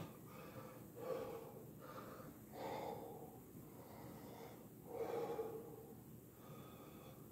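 A man breathing hard after strenuous exercise, pushing out heavy breaths through his mouth, sometimes through pursed lips, about every second or two as he catches his breath.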